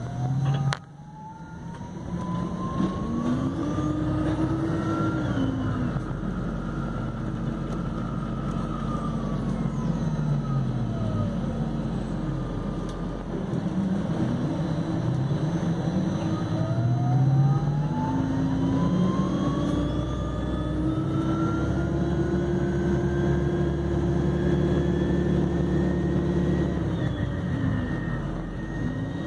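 Electric drive of a MAN Lion's City Hybrid bus whining as it runs: the whine rises in pitch as the bus gathers speed, falls as it slows, then rises again as it pulls away, over a steady low hum. A short knock about a second in.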